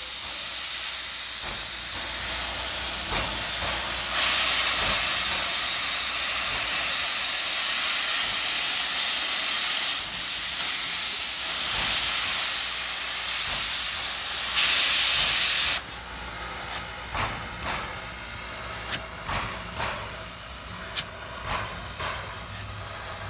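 Steam hissing loudly from the cylinder cocks of Clover Valley Lumber Co. 2-6-6-2T Mallet tank locomotive No. 4. The hiss cuts off suddenly about two-thirds of the way through, leaving quieter, irregular exhaust puffs as the engine works and smokes.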